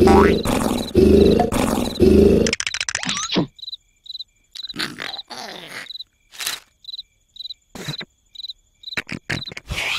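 A person snoring with a loud, rattling snore that stops about two and a half seconds in, followed by softer breathing noises. A short high chirp repeats steadily about every 0.6 seconds throughout.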